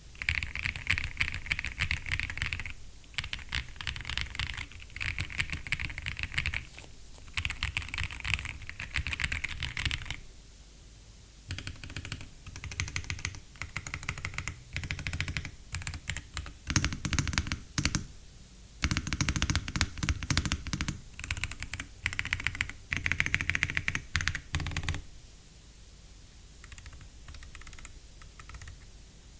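Royal Kludge RK65 mechanical keyboard, stock and unmodified, being typed on in fast bursts of key clacks with short pauses between them. The typing stops about four seconds before the end.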